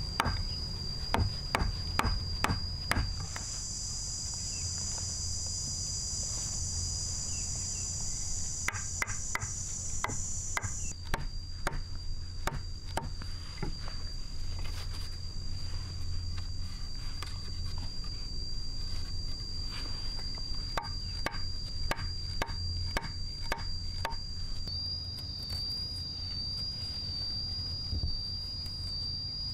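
Steady high-pitched drone of insects, with a second, higher insect drone joining a few seconds in and stopping near the middle. Over it, wooden poles knock and clack in irregular runs of sharp strikes as they are set down and fitted into a frame, quick and regular at first.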